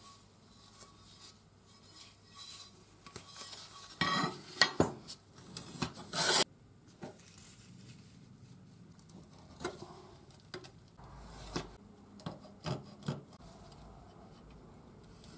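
Metal scraping and sliding on a steel workbench, loudest in a run of harsh scrapes about four to six seconds in. Then light clicks, taps and scratches as a steel plate is measured with a vernier caliper and marked out.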